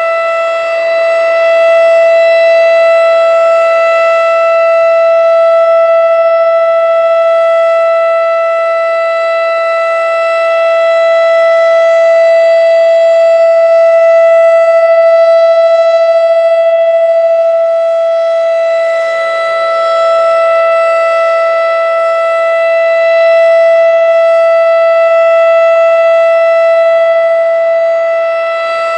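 Federal Signal Thunderbeam RSH-10A electronic outdoor warning siren sounding a steady, unwavering tone during its test. The tone swells and fades slowly in loudness, several times over.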